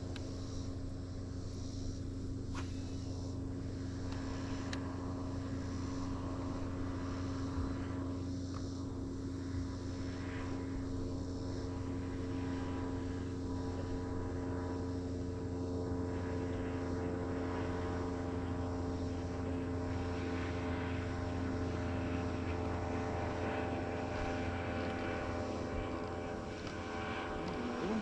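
Boat motor running steadily at an even pitch.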